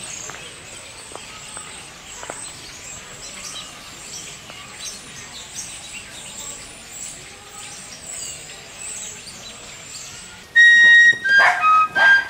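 Quiet outdoor background with faint chirps, then about ten seconds in a high, flute-like woodwind starts playing a tune loudly in clear, held notes.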